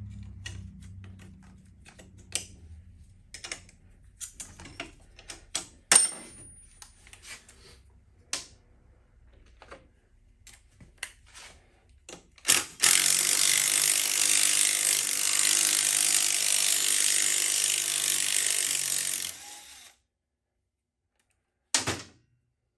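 Hand tools clicking and clinking on metal, then a cordless power tool runs steadily for about seven seconds as it spins out a bolt, with one short burst from it near the end.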